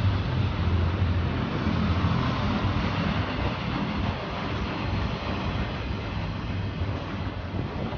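CN freight train cars rolling past at track speed: a steady rumble of steel wheels on the rails, heaviest in the first few seconds and easing slightly after.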